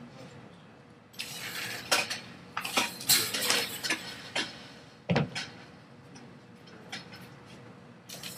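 A slinky clinking and clattering as it is handled and stretched out, in a run of quick jangles lasting about three seconds, followed by a single knock.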